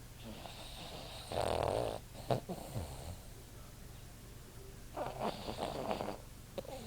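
Boston Terrier snoring in its sleep: two drawn-out snores, one starting about a second and a half in and another about five seconds in, with a brief sharp sound just after the first.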